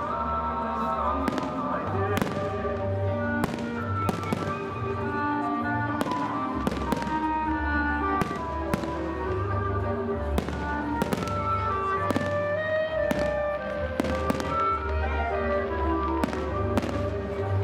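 Fireworks display: shells bursting in frequent sharp bangs, about one or two a second, over music with a pulsing bass.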